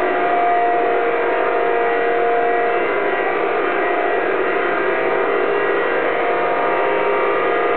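Syngas power plant machinery running: a steady mechanical drone with several steady humming tones over it.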